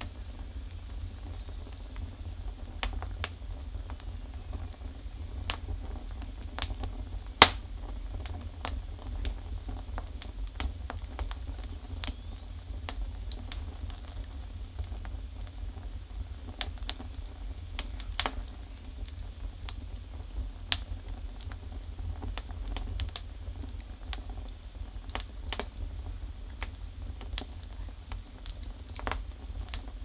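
Firewood burning in a Russian stove's firebox, crackling with irregular sharp pops over a steady low rumble; the loudest pop comes about seven seconds in.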